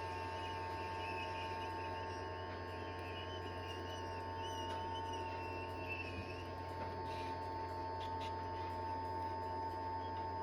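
Hot air rework station blowing steadily while heating a laptop board to desolder its charge ports: a constant hum with a steady whine over it.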